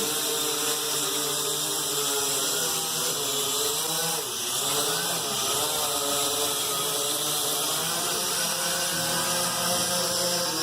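Small quadcopter drone's propellers and motors buzzing steadily in flight, the pitch rising and falling as it moves, with a dip and wobble about four to six seconds in.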